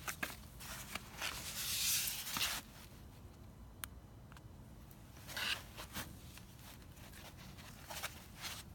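Handling noises: a rustling, scraping burst about a second in, a shorter one past the middle, and a few scattered light clicks.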